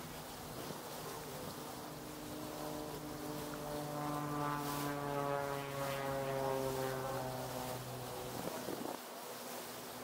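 Motorboat engine running underway: a buzzing hum that swells louder for a few seconds in the middle, then cuts off suddenly near the end.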